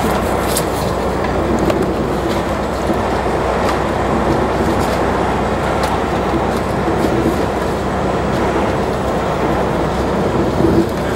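Steady road and engine noise heard from inside a vehicle travelling at highway speed, with a few faint light clicks or rattles and a brief rise in level near the end.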